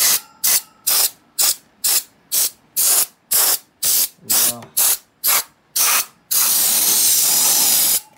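Canned air duster fired in short hissing blasts, about two a second, then held in one continuous blast of about two seconds near the end, blowing dust out of an amplifier's chassis.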